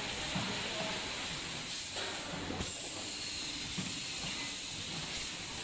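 Automatic rotary premade-pouch packaging machine running: a steady hiss with a few sharp clicks, two of them about two and two and a half seconds in.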